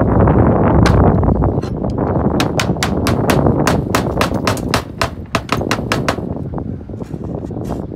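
Slater's hammer nailing round slate tiles onto a chimney's wooden boarding: a quick run of sharp light taps, several a second, mostly between about two and five seconds in, with a few scattered strikes before. Underneath is a steady low rumble.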